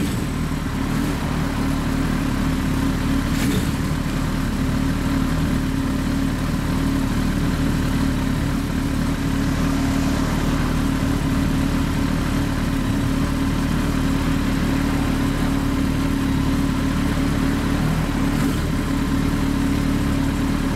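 Kawasaki ZZR1400 (Ninja ZX-14R) inline-four idling steadily through a Yoshimura aftermarket exhaust.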